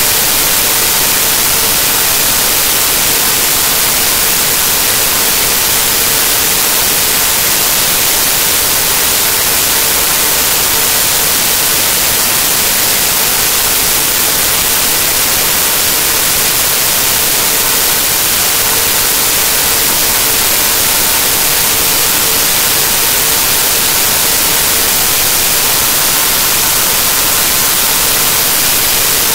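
Loud, steady hiss of static from a corrupted digital file, with a faint steady tone underneath. No speech or other sound comes through.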